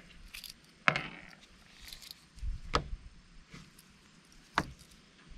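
Handling of a batting-helmet chin strap with snap fasteners: three short sharp clicks, about a second in, near three seconds and near the end, over faint rustling of the strap on a table.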